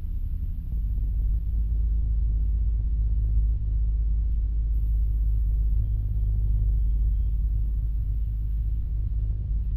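Low, steady rumble of a stopped city bus's idling engine, heard from inside the bus.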